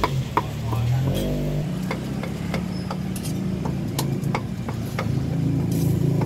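A cleaver chopping on a thick wooden chopping block, sharp knocks about two or three times a second. Under them runs the steady hum of a vehicle engine running, rising briefly in pitch about a second in.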